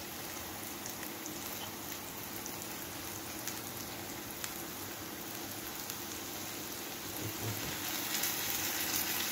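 Garlic butter and oil sizzling steadily in a frying pan on a gas stove, getting louder near the end as seared chicken breasts are laid into the hot fat.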